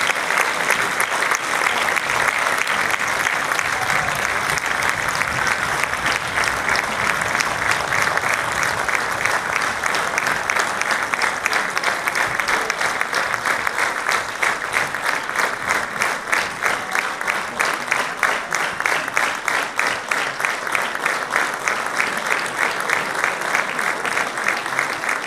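Large audience applauding, the clapping settling into a steady rhythmic clap in unison in the second half.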